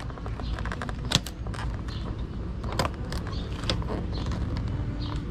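Scattered small clicks and rattles of a motorcycle clutch lever and cable being worked by hand at the handlebar perch, over a steady low rumble.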